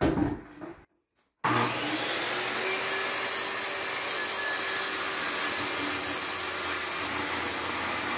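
Corded circular saw cutting through a solid wood tabletop, running steadily with a faint steady whine under the cutting noise. It starts about a second and a half in, after a brief knock.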